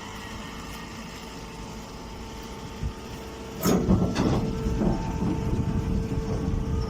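A baling machine hums steadily. About three and a half seconds in, a loud, irregular clattering and rattling starts and keeps going.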